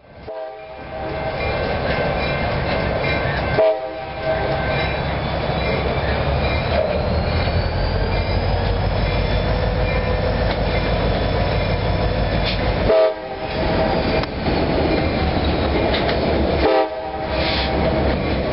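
Diesel locomotive horns sounding over the low rumble of trains, in short clips spliced together with abrupt cuts a few seconds in, about thirteen seconds in and near the end.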